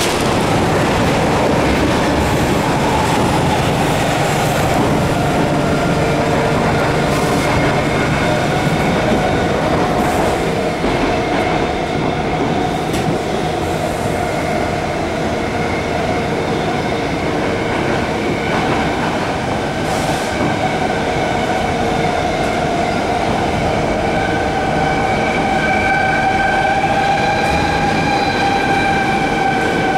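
Stockholm metro C6 railcar running at speed, heard from inside the car: a steady loud rumble of wheels on track. Several high tones ride over it, drifting slightly in pitch and growing stronger in the last few seconds.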